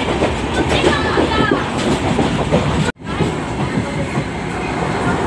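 Moving passenger train heard from an open coach doorway: the wheels running over the rails with rushing wind. A short break about three seconds in, after which the same running sound resumes.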